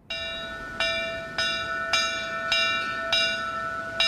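A metal bell struck over and over, about once every 0.6 seconds, each clang ringing on into the next: the warning bell of a vintage fire engine.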